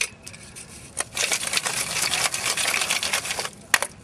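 Dry wooden sticks clattering against each other and the sides of a metal tin can as the tin is shaken to settle them so more will fit, a dense rattle for about two seconds followed by a few sharp clicks.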